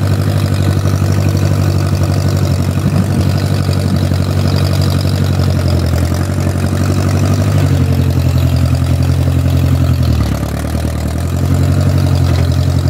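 1969 Case Construction King tractor loader's engine running steadily while plowing snow. About ten seconds in its pitch and level sag for a second, then pick back up.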